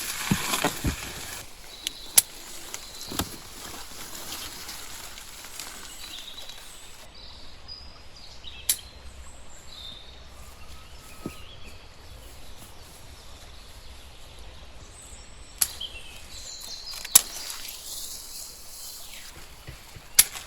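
Outdoor rural ambience: a steady hiss with a sharp click every few seconds and faint bird chirps.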